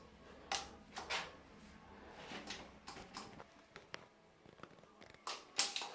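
A few sharp clicks and light knocks from handling tools and fittings during sealant work, with the louder ones about half a second and a second in and two more near the end.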